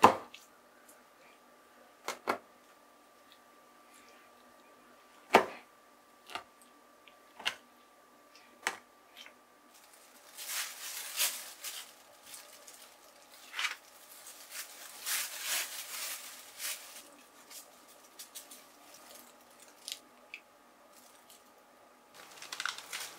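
A metal fork pricking raw chicken thighs, making sharp single taps a second or so apart. Then a thin plastic bag rustles and crinkles in bursts for several seconds as it is opened and handled.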